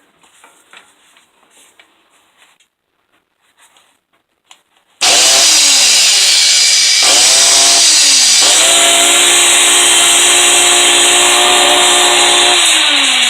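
Black & Decker angle grinder with a damaged armature switched on after a few seconds of faint handling clicks. It starts suddenly, about five seconds in, and runs loud with a harsh rushing noise over its motor hum. The pitch dips a few times in the first seconds, holds steady, then begins to sink near the end. The armature's protective cover has burned through, which makes the motor spark.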